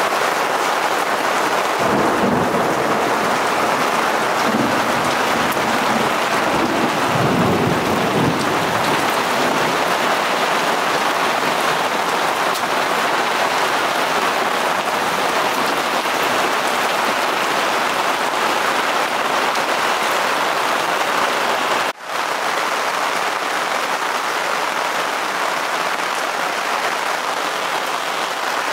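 Steady downpour of rain splashing on wet gravel ground, with a low rumble of thunder from about 2 to 9 seconds in. The rain cuts out for an instant about three-quarters of the way through.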